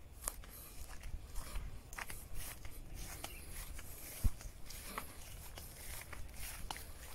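Footsteps and rustling through grass on an earthen path, with scattered light crunches and one sharp low thump about four seconds in.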